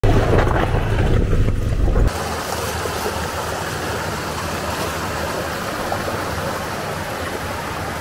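A pickup truck driving through a shallow rocky creek, its engine running low and heavy under the splash of water, for about two seconds. Then a sudden cut to the steady rush of water pouring down a small waterfall over rock.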